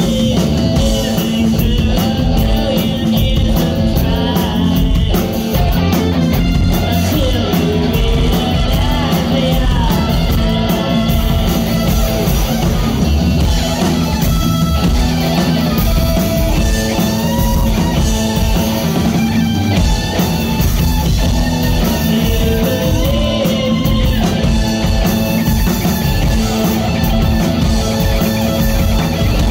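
A live rock band playing a song: electric guitars, bass and drums at a steady loud level, with a voice singing over them.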